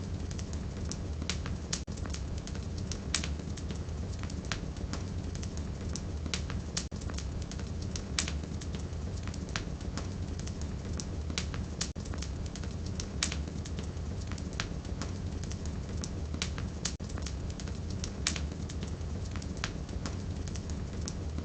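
Wood fire burning in a fireplace: a steady low rumble of the flames with irregular sharp crackles and pops from the burning firewood.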